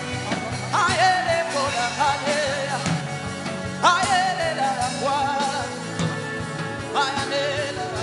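Background music with a steady beat under sustained chords. A singing voice slides up into long held notes about every three seconds.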